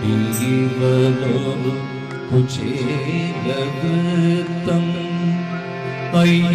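A man singing a slow melody with long held, gliding notes, with instrumental accompaniment.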